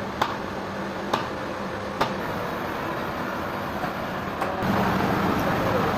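Sawmill machinery running with a steady hum and a low drone, with sharp knocks roughly once a second in the first half. About four and a half seconds in, the machinery grows louder.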